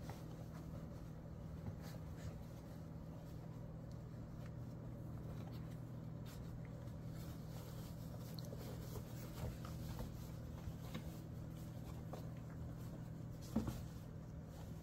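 Faint scratching and rustling of German shorthaired pointer puppies moving about on fleece bedding, over a steady low hum, with a single thump near the end.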